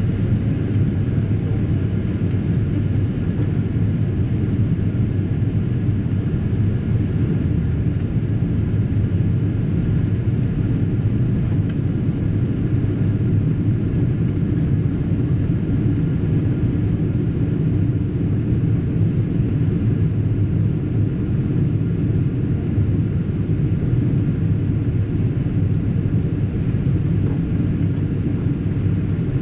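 Steady cabin noise of a Boeing 777-200ER on approach, heard from inside the cabin: a low, even rumble of engines and airflow, with faint steady tones above it.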